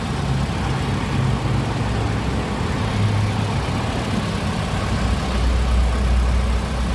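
Car engine idling steadily, a low drone with a deeper hum swelling briefly near the end.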